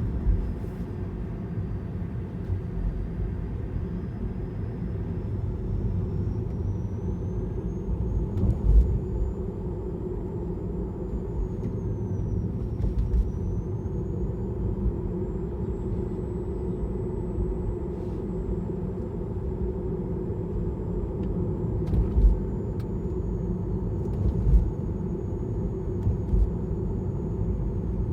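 Tesla Model 3 front drive unit whirring while driving: a thin high whine that rises and falls in pitch with speed, over steady road rumble. The owner cannot place the cause: the inverter pre-heating the battery for a Supercharger, or the drive unit running warm. A few sharp thumps come from the tyres going over manhole covers.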